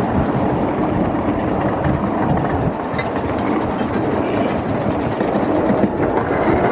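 Steel wheels of 1/5-scale ride-on miniature trains rolling on the track: a steady rumble and clatter as a long passenger train runs close alongside.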